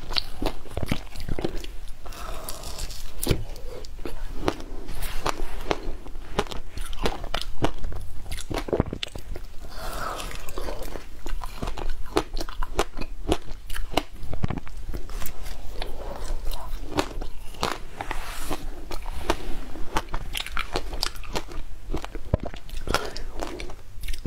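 A person biting and chewing lumps of matcha shaved ice, close to the microphone: a steady run of sharp, crisp crunches.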